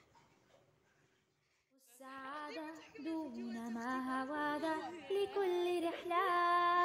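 A female voice singing a melody unaccompanied, starting about two seconds in and holding a long steady note near the end.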